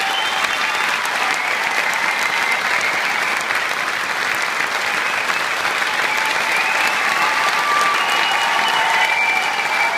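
Large theatre audience applauding steadily, a dense, even mass of clapping.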